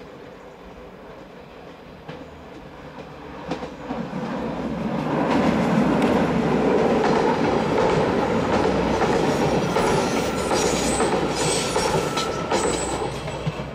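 A Stadler GTW diesel multiple unit passing close by on a steel-girder bridge. Its running grows louder from about four seconds in as it comes near, with a rapid clickety-clack of wheels over rail joints. Brief high-pitched wheel squeals come near the end.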